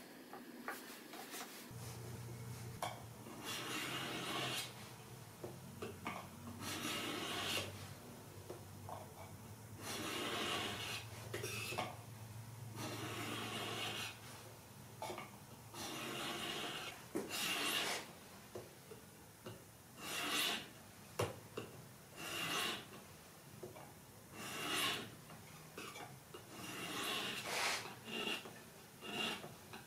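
Mini diamond whetstone on a wooden handle stroked along a steel knife edge in a guided sharpening jig: repeated gritty scraping strokes, about one every second or two, growing shorter and quicker later on.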